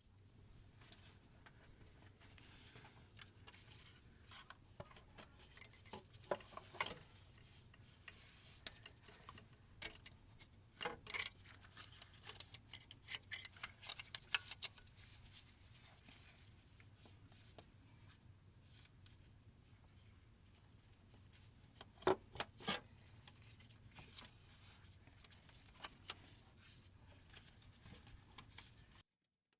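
Light metallic clicks, taps and knocks of hand tools and engine parts being handled while the crankcase ventilation module is fitted to a truck engine, coming in scattered clusters with the busiest stretch in the middle.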